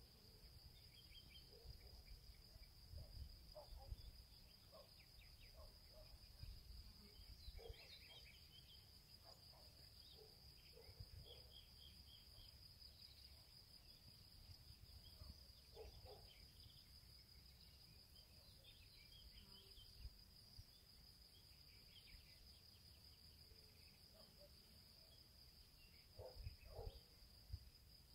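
Faint outdoor summer ambience: a steady high-pitched insect drone, with scattered short faint chirps and a low rumble underneath.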